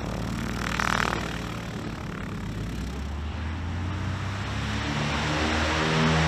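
Crop-duster tow plane's piston engine running steadily, with a short rushing surge about a second in. Background music fades in from about halfway.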